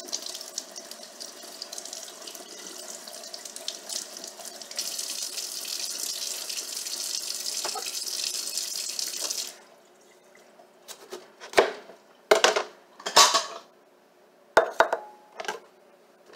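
Kitchen faucet running onto a head of broccoli being rinsed. The water grows louder about halfway through and is shut off suddenly. Then come about five sharp knife cuts through broccoli on a plastic cutting board.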